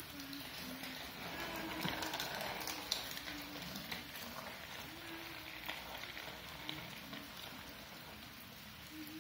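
Steady rain falling on a wet concrete driveway and its puddles, an even hiss with scattered sharp drop ticks, swelling louder for a couple of seconds about a second in.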